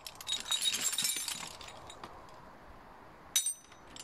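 Metal sockets and wrenches clinking and rattling against each other in a plastic crate as a hand rummages through them: a dense clatter in the first second and a half, then a single sharp clink near the end.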